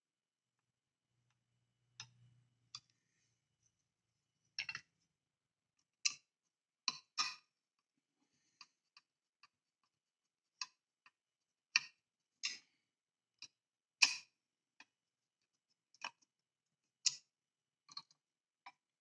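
Light, sharp clicks and ticks, irregularly spaced at roughly one a second, from a small screwdriver turning screws into a model car's plastic chassis.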